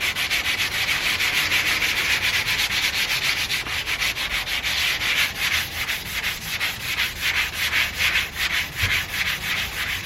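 Hand sanding of a 1991 Toyota MR2's painted body panel with sandpaper on a block, in quick, even back-and-forth strokes.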